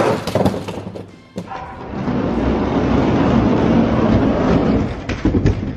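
Two die-cast toy monster trucks rolling fast down an orange plastic track: a steady rolling rumble of plastic wheels on plastic. It dips briefly about a second in and fades near the end.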